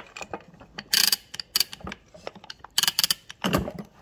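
Velocette LE engine's starter mechanism turned by hand: its ratchet clicks and rasps, louder about a second in and again near three seconds, with a dull knock near the end.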